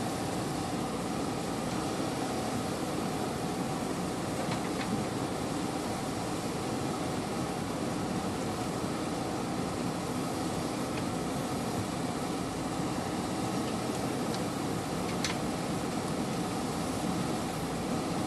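JCB 3DX backhoe loader's diesel engine running steadily at work, with a couple of faint metallic clicks, one about four seconds in and one near the end.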